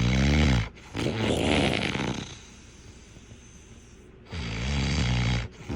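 A person snoring: a pitched snore, then a rougher, noisier one, a pause of about two seconds, and another pitched snore about four seconds in.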